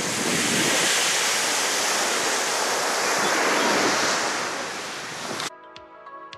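Small waves washing onto a sandy beach, with wind on the microphone, a steady rushing noise that eases off a little after about four seconds. The surf cuts off abruptly about five and a half seconds in and soft music takes over.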